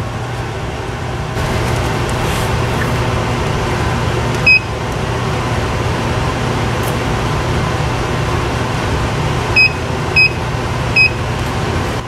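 SnoMaster EX85D 12 V fridge/freezer running with a steady hum that gets a little louder about a second in. The control panel gives short high beeps as buttons are pressed: once about four and a half seconds in, then three times near the end.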